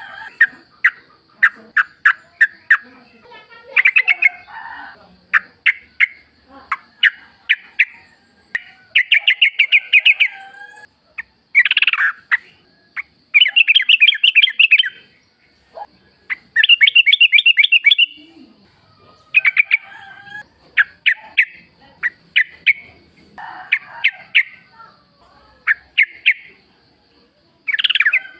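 Yellow-vented bulbul (trucukan) singing in the wild: a run of short, sharp call notes and bursts of fast, bubbly chattering phrases, each about a second long, repeating throughout, over a faint steady high tone.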